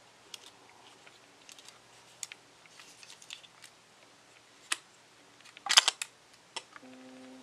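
Pentax ME 35mm SLR being handled: scattered light clicks and taps of fingers on its metal body and controls, with a louder quick cluster of clicks about six seconds in as the rewind knob is pulled up to unlatch the back.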